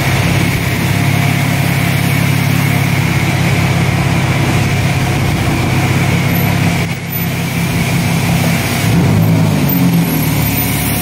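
Infiniti G35's 3.5-litre VQ V6 running through a custom exhaust of resonated test pipes into an X-pipe with dual straight outlets: a steady engine drone with a brief dip about seven seconds in and a shift in pitch about nine seconds in.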